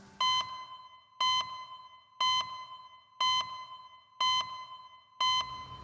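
Six short electronic beeps, one every second, each a steady high-pitched tone: the ticking-clock beep that marks the seconds of an on-screen time display.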